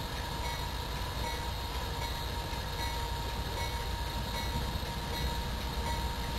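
Lead diesel locomotive idling at a standstill after an emergency brake application, throttle at idle: a steady low engine rumble with a thin steady tone above it.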